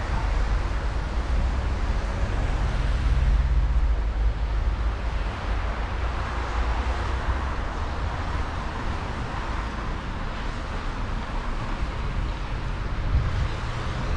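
Road traffic: vehicles running past in a steady low rumble with tyre noise. Near the end one engine's hum starts to rise.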